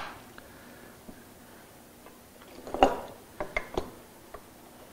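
Small wooden blocks knocking and clicking against a wooden router-table jig as they are set in place: a short cluster of knocks about three seconds in, then a few sharp single taps.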